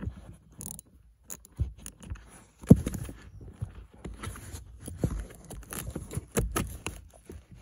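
Irregular clicks, knocks and scraping of a short screwdriver and fingers working at screws and plastic parts under a car's dashboard, with one louder knock a little under three seconds in.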